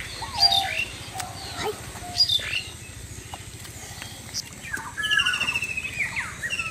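Birds chirping and calling: short whistled notes and sliding calls, with a fast trilled call starting about five seconds in.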